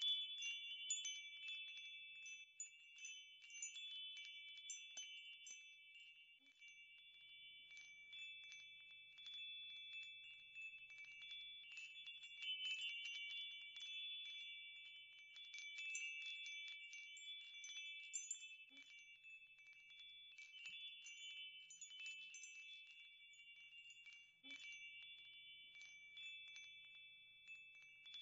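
Wind chimes tinkling faintly and continuously, several high ringing tones sustained under a steady patter of quick strikes.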